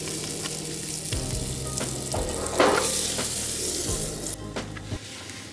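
A pat of butter sizzling as it melts in a hot nonstick frying pan: a steady hiss with a few small pops, cutting off suddenly about four seconds in.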